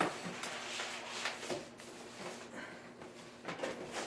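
Cardboard box and packaging being handled and unpacked: irregular rustling, scraping and light knocks.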